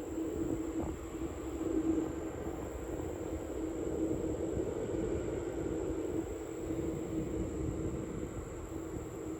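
Jet airliner engines running steadily, a low rumble with a held hum that does not rise or fall.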